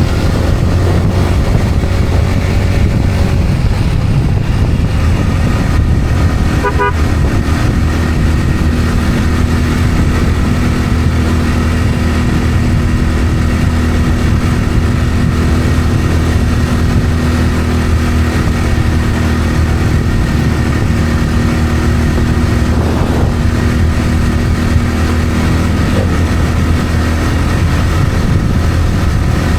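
Steady drone of a road vehicle's engine and road noise while driving.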